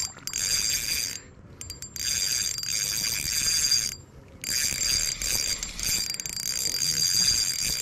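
Spinning reel being cranked, its gears giving a steady high whirr as line is wound in. The cranking stops briefly about a second in and again about four seconds in, then starts again.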